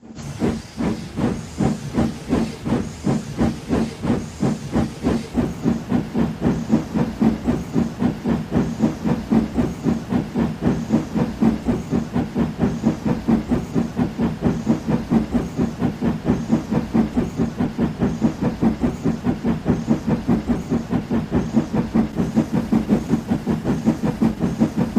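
Steam locomotive exhaust chuffing in a steady rhythm of about three beats a second, with a hiss of steam, building up over the first couple of seconds and then running evenly.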